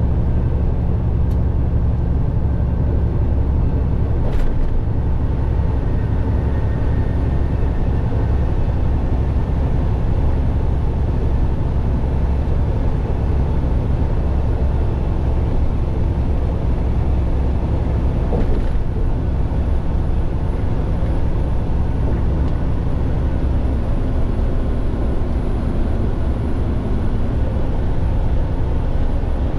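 Steady engine drone and road rumble heard inside a truck cab at highway speed, with a couple of faint clicks.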